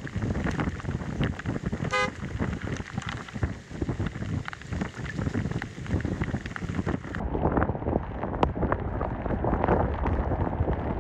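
Hurricane wind buffeting the microphone with rain, and a pickup truck passing on the flooded road. A short vehicle horn toot sounds about two seconds in.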